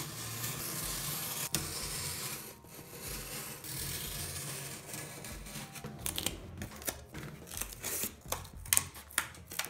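Utility knife blade drawn through corrugated cardboard along a metal ruler, a scratchy cutting sound for the first six seconds or so. After that comes a run of short knocks and crackles as the cut cardboard piece is pulled free and handled.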